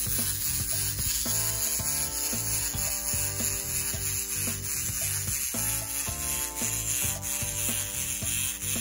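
Small battery-powered walking toy dinosaur's motor and plastic gears running with a steady, high grinding whir as it walks, over background music.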